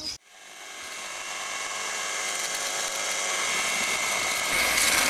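Electric drill with a paddle mixer running steadily, churning a gritty lime mortar of coarse sand, crushed brick and hydraulic lime in a plastic bucket. The motor noise grows louder over the first seconds after starting, and a higher tone comes in near the end.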